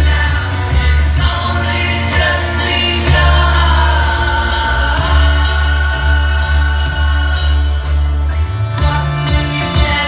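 Loud amplified song with a steady bass line and singing, played over a stage sound system.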